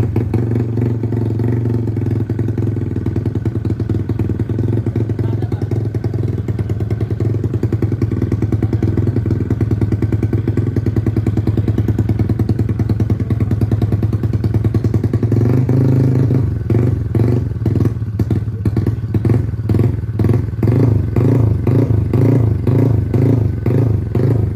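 A modified Honda Nice125 underbone motorcycle engine, built out to 250cc with a four-valve head, running loud through its open aftermarket pipe with a steady fast beat. From about sixteen seconds in it surges up and down over and over.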